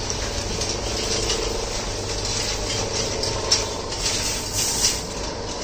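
Freshly puffed rice being tossed and poured out of a large iron roasting pan: a dry rustling with light scrapes and a few soft ticks, over a steady low hum.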